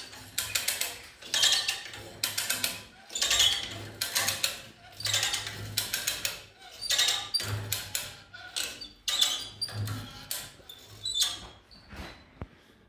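Repeated bursts of rapid mechanical clicking, about one burst a second, with a low hum under many of them, dying away near the end.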